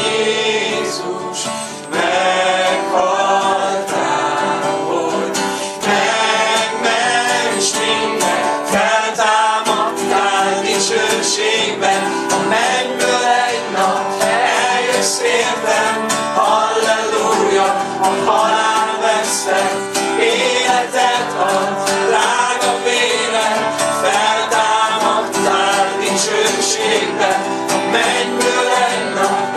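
Male voice singing a worship song, accompanied by a strummed acoustic guitar, with steady strokes and no break.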